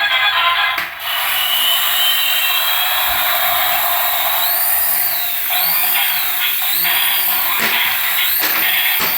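A toy's small electric motor whirring steadily, with a sweeping high tone that repeats about once a second from about halfway through.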